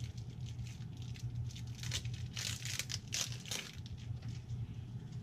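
A wrapper being torn and crinkled off a small pack of game cards, in scattered rustles with a cluster of louder crinkles from about two to three and a half seconds in.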